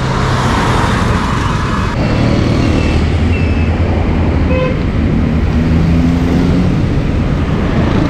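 Busy road traffic: cars and motorcycles going past with engines running. For about the first two seconds it is the rush of riding along the road on a motorcycle, then it changes abruptly to traffic heard from the roadside.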